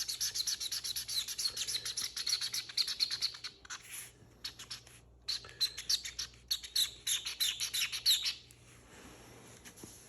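Felt-tip marker scribbling on paper in quick back-and-forth strokes with a squeaky, chirping edge as the drawing is filled in black. It stops about three and a half seconds in, resumes about a second and a half later and stops again near the end.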